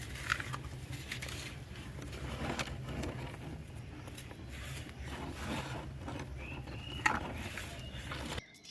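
Dry black sand crumbling and crunching by hand in a clay pot: scattered gritty crackles and small clicks, over a steady low hum.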